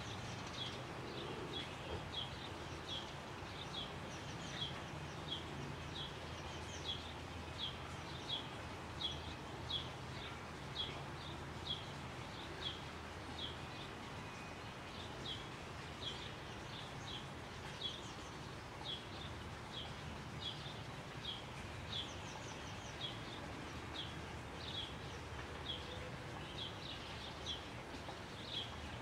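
A bird repeating one short, downward chirp over and over, about one to two a second, over steady outdoor background noise with a low hum.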